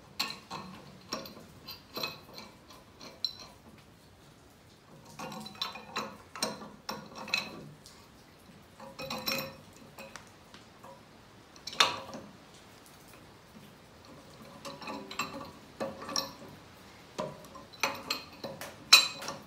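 Large steel pipe wrench clinking and clanking against the nut and bolt of a homemade sleeve puller as the nut is turned in short strokes to draw a cylinder sleeve out of a tractor engine block. Sharp metal clicks come in uneven clusters, the loudest about twelve seconds in.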